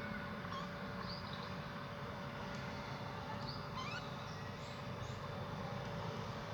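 Small birds chirping, with scattered short high notes and a quick rising run of notes about four seconds in, over a steady low background rumble.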